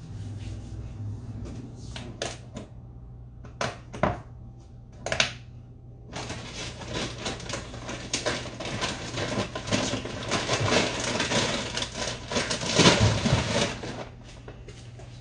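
Kitchen handling noise: a few sharp knocks, then about eight seconds of dense, irregular clicking and crackling, over a low steady hum.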